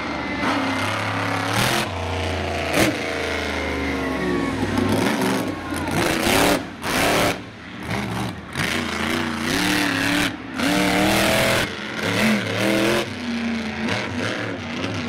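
Monster truck engine revving hard in repeated surges, its pitch rising and falling as the throttle is worked.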